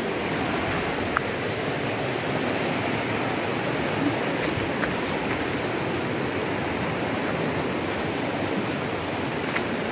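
Shallow river rapids rushing over rocks: a steady, even roar of water, with a few faint clicks.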